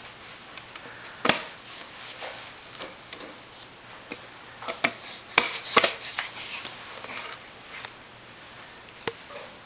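A baby's hands slapping and rubbing on a wooden skateboard deck: a few sharp slaps, one about a second in, a quick cluster around five to six seconds in, and one near the end, with scratchy rubbing between.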